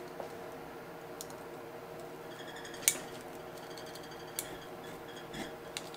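Tongue-and-groove pliers twisting the glued metal bezel of a water pressure gauge held in a vise: a few faint clicks and metallic creaks as the bezel works loose, the sharpest click about three seconds in.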